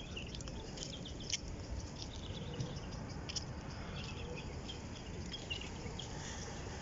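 A flock of pigeons feeding on paving: scattered short high bird chirps and light clicks and flutters, over a steady low background rumble.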